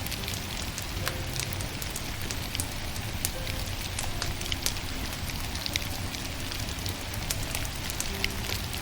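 Wood fire burning, with frequent sharp crackles and pops of the firewood over a steady soft hiss.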